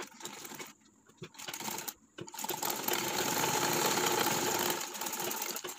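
Domestic sewing machine stitching a seam: two short runs, then a steady run of about three and a half seconds that is louder than the first two.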